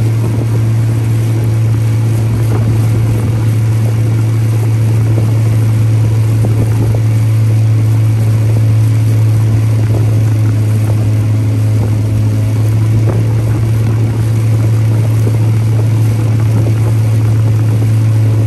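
A boat's outboard motor running steadily under way, a loud, constant low drone.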